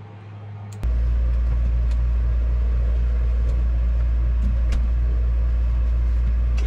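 A loud, steady low mechanical hum with a slight regular pulse, switching on abruptly about a second in.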